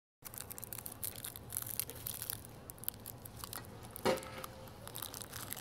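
A person snacking: crackly rustling and crinkling of food being handled close to the phone's microphone, with a louder bite about four seconds in.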